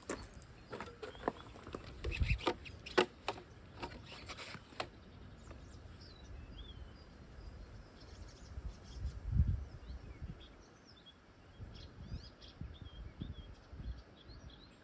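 Irregular clicks and knocks of tools working on the battery pack's terminals for the first five seconds or so. Then birds chirp in the background, with one dull thump about nine and a half seconds in.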